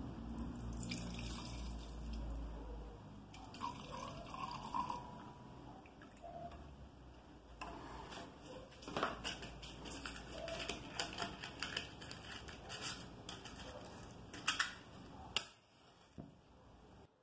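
Light dripping and handling sounds on a metal workbench. Near the end, a match is struck on its box, two quick strikes and then a third, and it flares alight.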